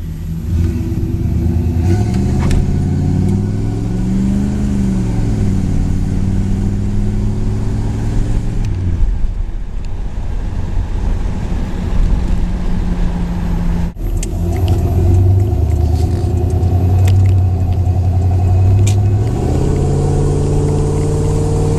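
Chevrolet 350 small-block V8, fed by a Quadrajet carburetor and running through Flowmaster mufflers, accelerating with the secondaries opened. The engine note climbs and falls back about four seconds in, holds steady, breaks off briefly past the middle, and climbs again near the end.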